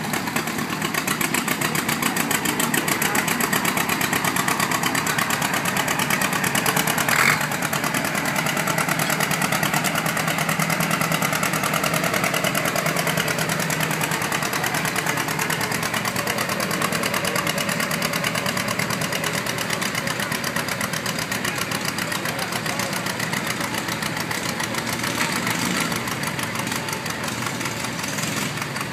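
Vintage John Deere two-cylinder tractor engine running under load as it drags a weight-transfer pulling sled, with a steady rapid exhaust beat. A single sharp click comes about seven seconds in.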